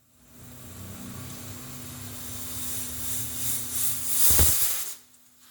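Hawkins pressure cooker whistling: a steam hiss builds over about four seconds to a loud blast of escaping steam, then cuts off suddenly.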